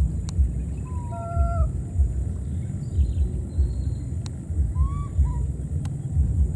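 A low, uneven rumble on the microphone throughout, with a few short, high, pitched animal calls about a second in and again near five seconds.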